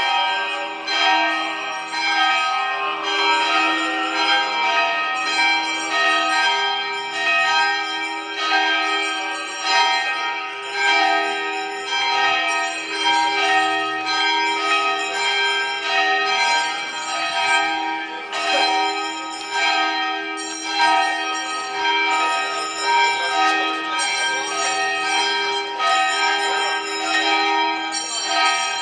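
Church bells ringing a continuous peal, with overlapping strikes about once a second.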